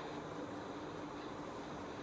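Steady background hiss with a faint, even hum underneath and no distinct event.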